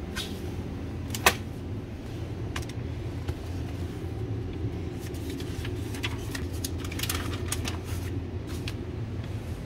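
Newspaper pages rustling and crinkling as the paper is handled and turned, over a steady low rumble. One sharp click about a second in.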